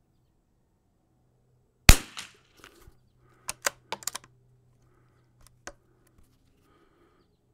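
A single shot from a 1972 Anschutz 54 bolt-action .22 LR rifle, a sharp crack with a short tail. About a second and a half later come several quick metallic clicks of the bolt being worked, then two more clicks.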